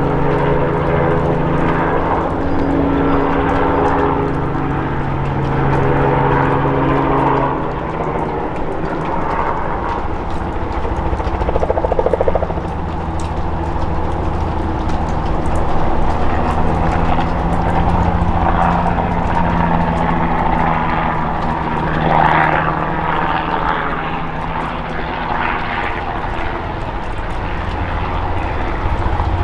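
Robinson R44 Clipper II helicopter in flight, its Lycoming IO-540 six-cylinder engine and rotors making a steady drone. The drone dips in pitch and loudness about eight seconds in, then builds again.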